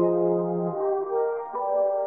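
Background music: slow, mellow held chords in a soft horn-like tone, moving to a new chord about every half second to second.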